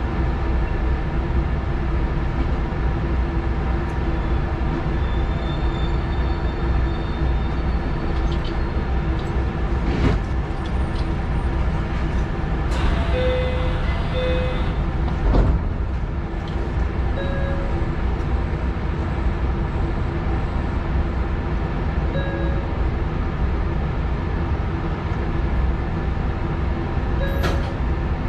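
Inside the cab of a Sanyo 6000 series electric train: a steady low rumble and electrical hum from the train's equipment as it creeps to a stop and stands at the platform. Two sharp clicks come about ten and fifteen seconds in, and a few short beeps sound through the second half.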